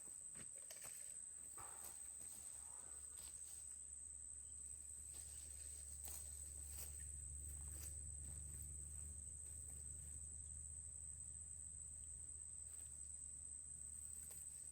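Faint, quiet background with a steady high-pitched tone over a low hum and a few faint ticks.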